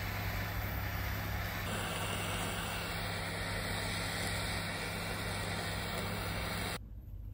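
Handheld butane kitchen torch burning with a steady hiss as it browns melted cheese. The hiss shifts slightly about two seconds in and cuts off abruptly near the end.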